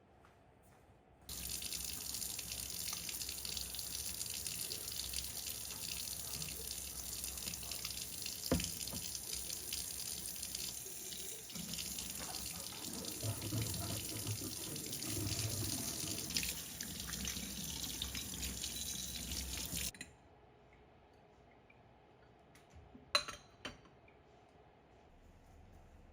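Tap water running into a sink, turned on about a second in and shut off abruptly about twenty seconds later; the splashing changes partway through. A couple of short clicks follow a few seconds after the water stops.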